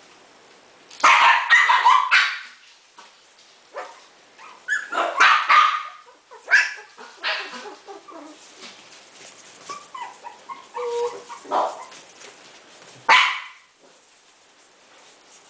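Four-week-old Coton de Tulear puppies yapping in several short, high-pitched bursts with pauses between.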